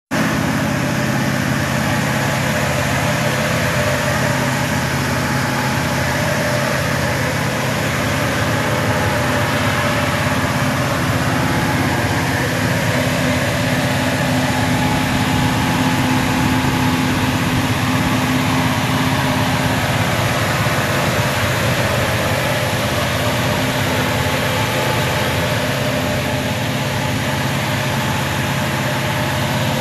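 1964 Chevy C10 pickup's engine idling steadily.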